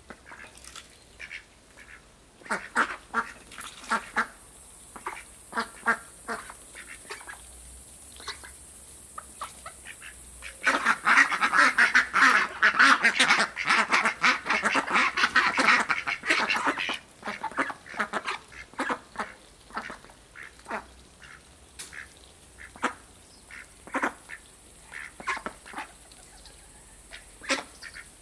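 Indian Runner ducks quacking while they feed: single quacks scattered throughout, with a loud stretch of about six seconds in the middle where many ducks quack at once.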